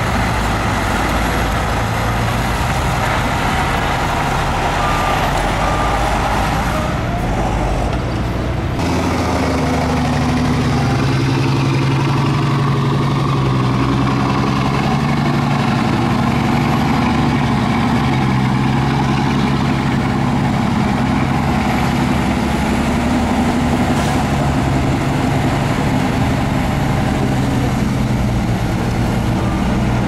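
Heavy diesel earthmoving machinery running, continuous and loud. About nine seconds in the sound settles into a steadier engine drone with a clear pitch that wavers as the load changes.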